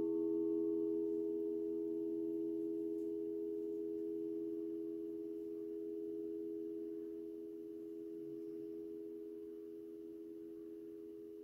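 Alchemical quartz crystal singing bowls ringing in long, pure, steady tones. A handheld bowl is struck right at the start and adds a higher note over one already sounding, with a lower tone pulsing beneath, all fading slowly.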